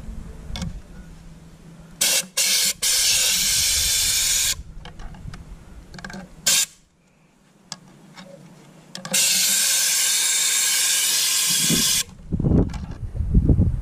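Spray gun with a long metal nozzle hissing in blasts as it flushes deposits out of a diesel EGR cooler pipe. There are three quick blasts about two seconds in, running into a longer one, then a brief one, then a long blast of about three seconds near the end.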